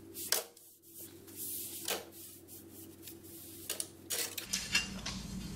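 A cloth rag wiping cutting dust off the surface of a large-format tile: a few short rubbing strokes, with light knocks as the tile is handled.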